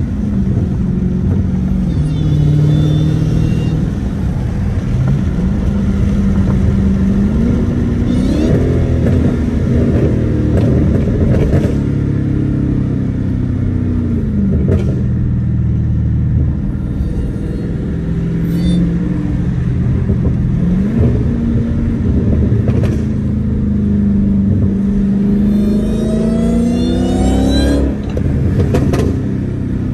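Dodge Hellcat's supercharged V8 pulling through the gears, its note rising and dropping back with each shift. A high supercharger whine climbs in pitch on the harder pulls, about two seconds in and again near the end.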